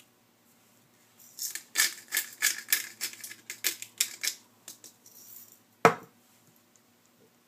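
Peppercorn grinder being twisted by hand, grinding out a run of crunchy ratcheting clicks, about three a second, for some three seconds. Near the end comes one sharp knock as the grinder is set down on the wooden cutting board.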